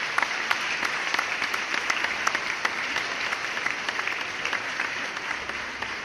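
Crowd applauding: dense, steady clapping from many hands, easing off slightly near the end.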